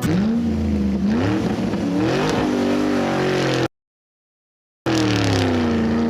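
Vehicle engine revving sound, its pitch rising and falling. It cuts off abruptly after about three and a half seconds, goes completely silent for about a second, then comes back with a slow dip and rise in pitch.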